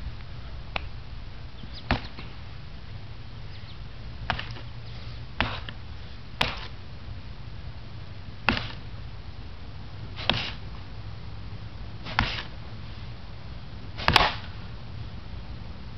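A series of about nine short, sharp snaps, irregularly spaced one to two seconds apart, from the fast strikes and kicks of a kung fu leopard form. The loudest is a doubled snap near the end, as a kick lands, over a steady low hum.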